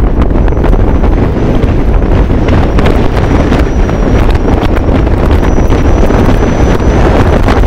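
Strong force 6 wind buffeting the microphone on the deck of a sailboat under sail, a loud, steady rumble.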